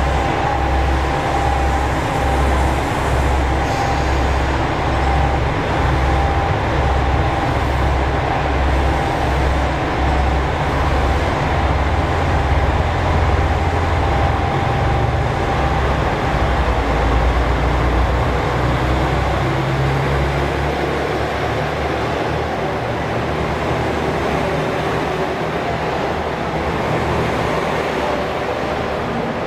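JR Shikoku 2000 series diesel railcar idling at a station platform with a low, even pulse. About nineteen seconds in its engines rev up with a rising note, and the train pulls away past the platform.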